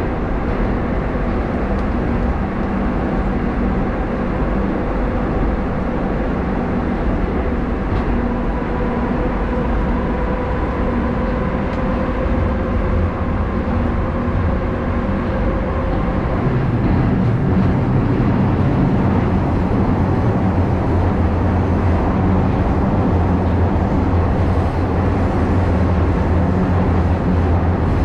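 Running noise of an 81-740.1 Rusich metro train heard from inside the passenger car in a tunnel: a steady rumble of wheels and running gear, with a faint whine in the middle. The low rumble grows louder a little past halfway.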